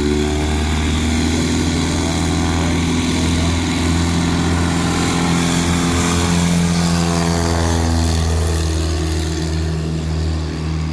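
Engine and propeller of a large-scale radio-controlled Bigfoot STOL plane at high power on its take-off run, lifting off near the end. A loud, steady drone whose higher tones sweep as the plane goes past.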